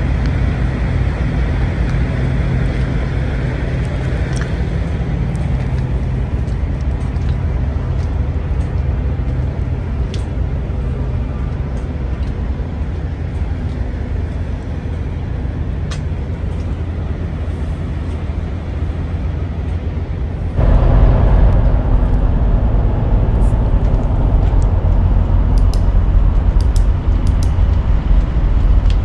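Caterpillar diesel engine of a 1955 International truck idling steadily, a low even rumble. About two-thirds of the way in it becomes suddenly louder and deeper.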